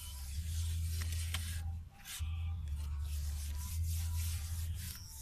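Wet mud being scraped with a hoe and pressed by hand, over a low rumble that runs in two long stretches, with a sharp click about a second and a half in.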